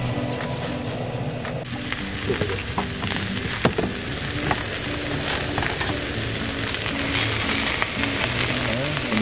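Beef steaks sizzling as they sear in a cast-iron skillet over a portable gas burner, the hiss setting in about two seconds in and running steadily.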